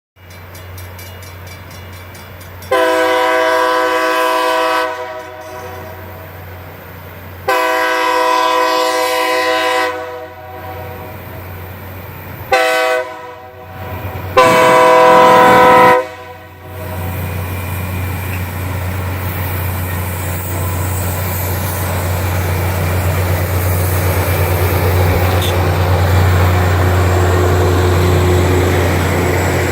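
A rail grinder's multi-note air horn sounds the grade-crossing signal: two long blasts, one short, then one long. The grinder train then passes with a steady rush and a low hum that grows louder toward the end.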